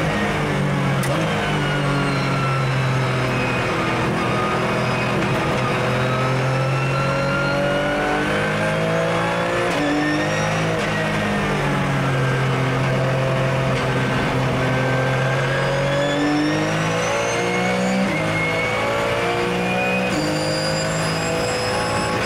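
Porsche 997 GT3 Cup race car's flat-six engine heard from inside the cabin under hard driving. The engine note falls, then rises and falls again, with several quick jumps in pitch as it shifts gear.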